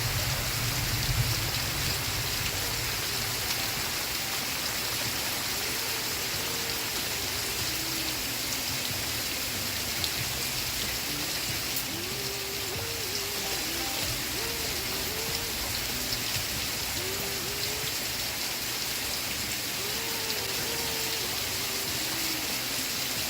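Steady rain hiss, with a faint, muffled television soundtrack playing a wavering melody underneath.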